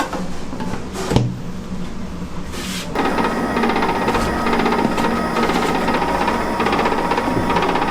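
A single knock about a second in, then from about three seconds in a machine running with a fast, steady mechanical clatter.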